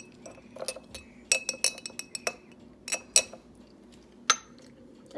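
Glass jar clinking and tapping as red glitter is shaken and tapped into it from its small container: a run of quick clinks from about a second in, and one louder sharp clink near the end.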